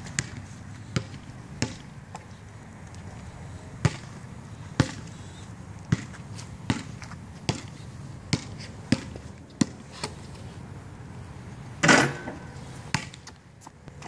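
Basketball bouncing on pavement: single thumps about a second apart in an uneven rhythm, with one louder, longer clatter about twelve seconds in.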